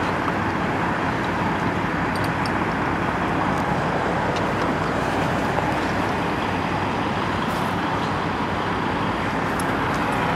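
Steady road noise from freeway and truck-stop traffic: a continuous, even rumble and hiss with no single vehicle standing out.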